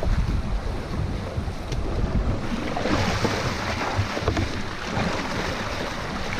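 Wind buffeting the microphone over a river current, giving way about three seconds in to the steady hiss of fast, shallow river water rushing over rocks close by.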